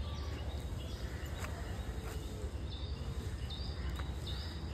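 Birds chirping in short, high calls repeated every second or so, over a steady low rumble, with faint sharp clicks about once a second.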